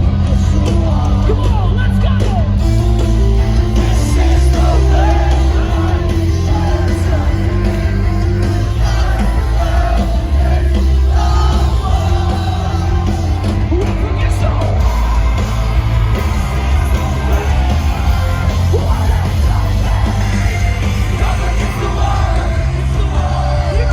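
Loud live rock band playing heavy chords with a singer's vocals over them, continuous without a break.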